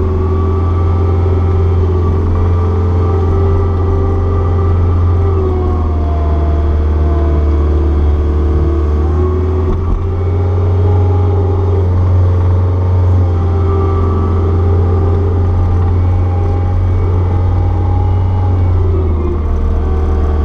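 Caterpillar 236B skid steer's diesel engine running steadily under working load, with higher tones in it shifting pitch a few times as the machine works the throttle and hydraulics.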